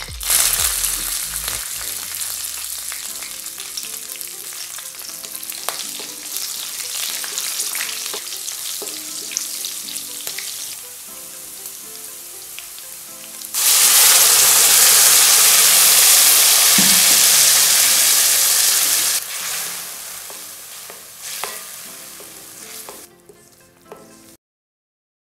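Whole spices, green chillies and cumin sizzling in hot oil in a steel kadai, stirred now and then. About 13 seconds in, a much louder sizzle starts as a red wet masala paste hits the oil, then fades while the paste is stirred with a wooden spatula, before the sound cuts off suddenly near the end.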